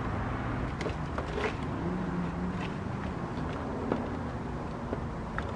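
A few faint, scattered clicks and taps of plastic car-door trim parts being handled and fitted, over a steady low hum.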